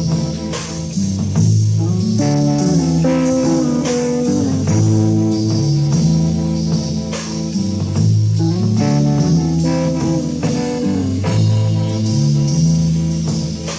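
Live rock band playing: electric guitar and bass guitar working a repeating riff over drums and cymbals, recorded on a hissy audience tape.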